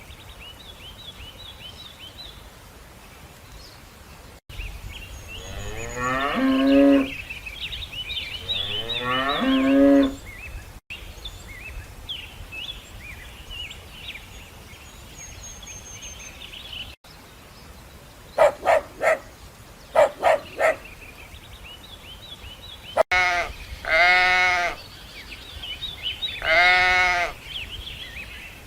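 A run of farm animal calls: cattle mooing twice in long calls that rise in pitch, then a cluster of short calls, then two wavering bleats. Birds chirp faintly in the gaps between the calls.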